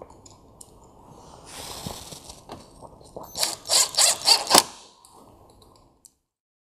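Cordless drill-driver driving a T25 Torx screw into the top of a car grille. It spins briefly about one and a half seconds in, then gives a run of about six loud, rapid clicks near the middle as the screw runs in.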